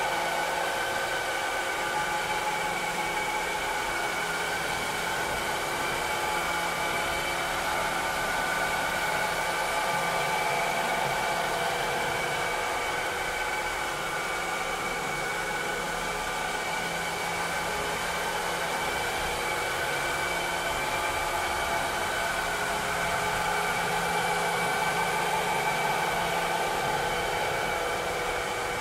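Robotic vacuum cleaner running steadily: the hiss of its suction fan and airflow with several steady motor whines layered over it, the loudness swelling and easing only slightly.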